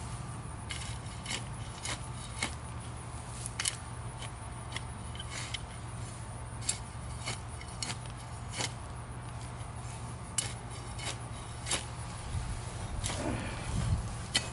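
Irregular sharp snaps and clicks of brush and grapevines being cut and broken by hand, a few each second, over a steady low hum.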